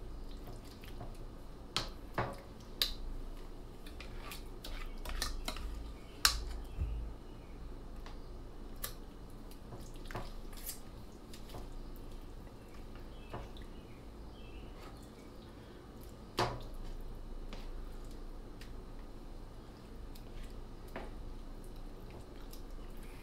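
Large serving spoon pressing thick tomato sauce down into rigatoni in a metal springform pan: small wet squelches and sticky clicks, with a few sharper clicks scattered through, loudest about six and sixteen seconds in.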